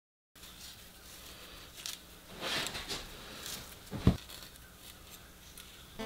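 Kitchen handling noises: light rustles and clicks, a brief scraping swell about two and a half seconds in, and one sharp thump about four seconds in.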